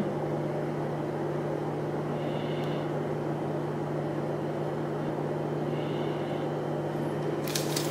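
A steady low background hum with a few faint overtones.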